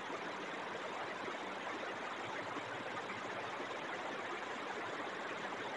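Steady, even background hiss of room noise, with no distinct strokes or knocks.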